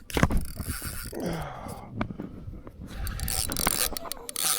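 Fishing reel being worked during the fight with a large sheepshead, mechanical clicking and scraping with scattered knocks.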